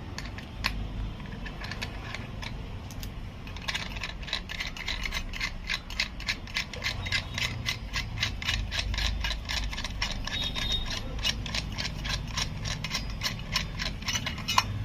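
Rapid ratchet-like clicking as a sink waste coupling is handled, starting about four seconds in and running on in a dense train of small clicks, with a few scattered clicks before it.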